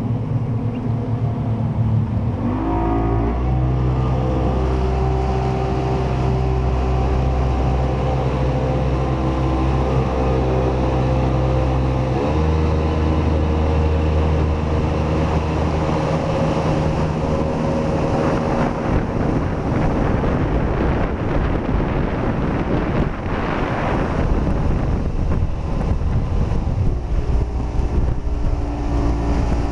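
Jet ski engine running: its pitch rises about two seconds in and holds steady, shifts around twelve seconds in, and in the second half gives way to a louder rushing noise of wind and water.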